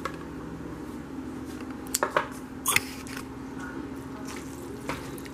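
A spatula stirring and turning thick, saucy pasta in a metal saucepan, with a few sharp knocks and scrapes against the pot about two to three seconds in and another near the end, over a steady low hum.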